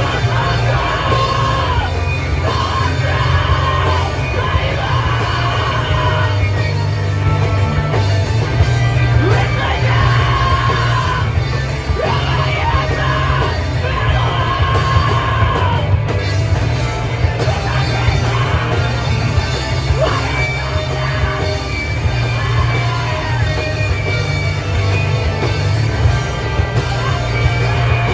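Live rock band playing loudly: electric guitars, bass and drums, with a vocalist yelling and screaming into the microphone.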